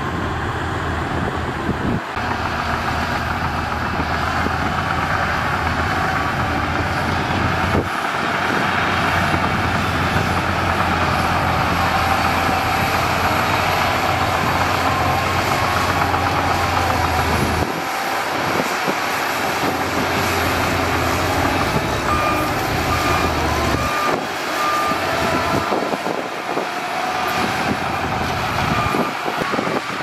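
Shantui DH17C2 crawler bulldozer's diesel engine running steadily under load while pushing dirt. In the last third, a reversing alarm beeps repeatedly at one pitch.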